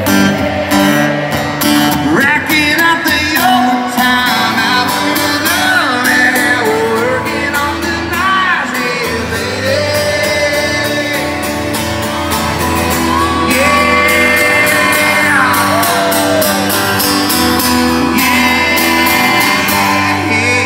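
Live acoustic country music through a hall PA: strummed acoustic guitar with a man singing, and the crowd shouting and whooping along.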